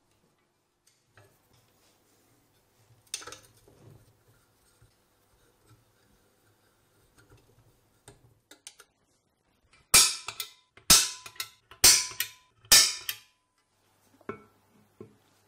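Faint handling noises, then four loud, sharp knocks about a second apart, each with a short ringing tail.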